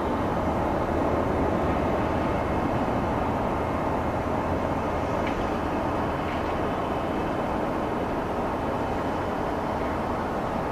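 Airbus A319-111 airliner's CFM56 turbofan engines at takeoff thrust, a steady low rumbling noise heard from the ground as the jet climbs away, fading slightly.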